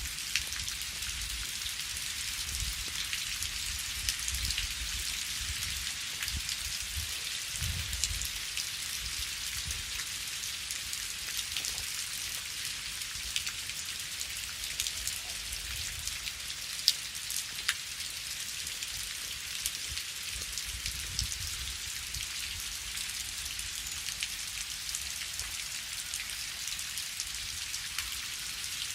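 Steady rain falling, a continuous hiss dotted with the sharp ticks of individual drops, over a soft low rumble.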